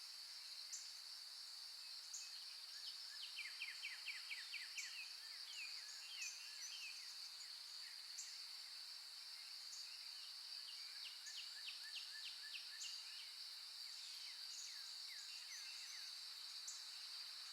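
Faint nature ambience: small birds chirping, with short calls and quick trills that come in bunches, over a steady high-pitched insect drone.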